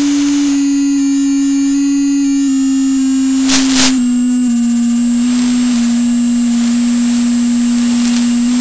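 Steady electronic tone from a model aircraft's audio variometer, stepping slowly down in pitch as the sink rate grows. Two short bursts of static come a little past the middle.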